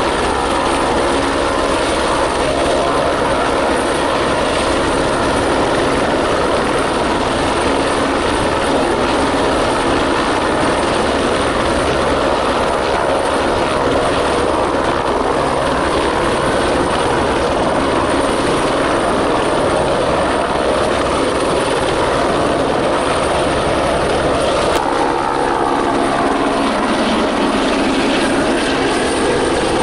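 Airbus H125 (AS350 B3e) single-engine helicopter hovering close by: steady turbine whine mixed with the rush and beat of the main and tail rotors. About 25 s in the tones begin to glide and shift as it noses over and starts to fly away.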